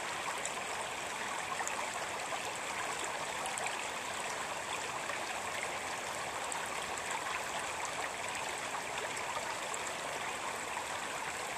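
Shallow stream running over a stony bed: a steady babble of water with little high splashes scattered through it.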